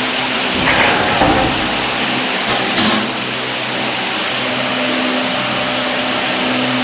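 Steady machine hum and whir from the saw-blade welding rack and its brazing equipment, with a few knocks about a second in and again near three seconds as the large steel saw blade is handled and turned on the rack.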